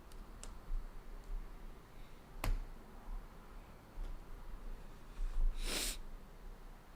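Trading cards and packaging being handled at a table: a few faint ticks, one sharp click about two and a half seconds in, and a short rustle near the end, over a low steady hum.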